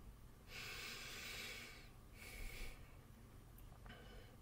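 A man breathing out twice, quietly, close to the microphone: a longer breath starting about half a second in, then a short one just after two seconds.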